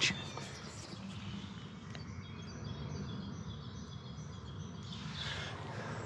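Steady low outdoor background noise by a brook, with faint bird calls.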